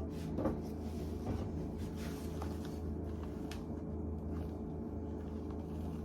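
Soft scrapes and a few light knocks of a spatula working sponge-cake batter in a mixing bowl, folded gently so the beaten eggs do not deflate, over a steady low hum.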